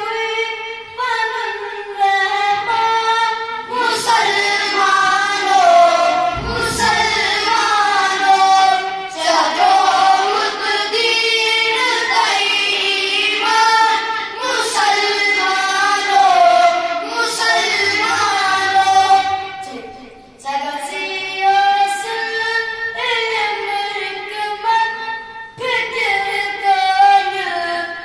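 Boys singing a nazm, an Urdu devotional poem, in long sung phrases, with a short break about twenty seconds in.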